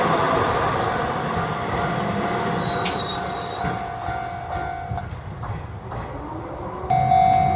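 A Keio 1000 series electric train passing over a level crossing, its running noise fading away as it goes, while the crossing's warning bell rings and then stops after about five seconds. Near the end another crossing's warning bell starts suddenly and loudly.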